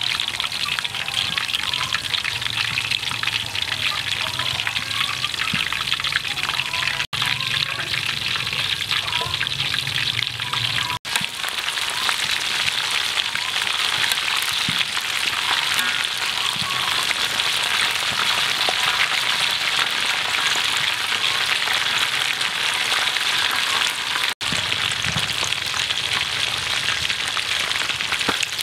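Battered frog pieces deep-frying in a wok of hot oil: a steady, loud sizzle that drops out for an instant three times.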